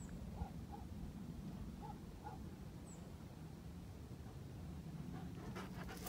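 A dog panting softly over a low steady rumble, with a few faint short sounds in the first couple of seconds and clicks starting near the end.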